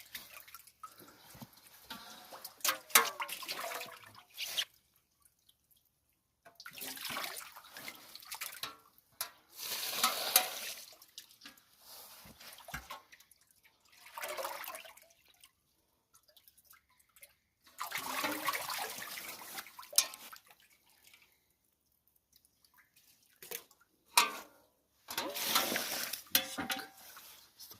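Water splashing and sloshing in bursts of a few seconds, with quiet gaps between them and a few sharp splashes or clicks.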